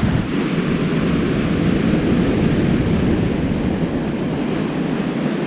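Surf breaking close by and washing up a sandy beach, a steady rushing wash, with wind buffeting the microphone.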